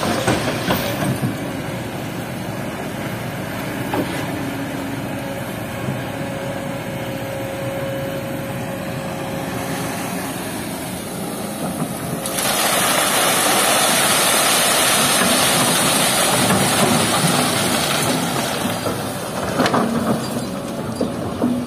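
Kobelco excavator's diesel engine running steadily as it digs in the river. About midway, for some six seconds, a loud rush of water and gravel as a bucket load is tipped out onto the steel mesh screen.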